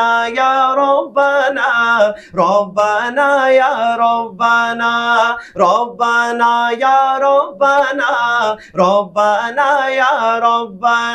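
Male naat reciter singing drawn-out melismatic phrases of an Urdu dua-naat, with long held notes and short breaks for breath, over a steady low drone.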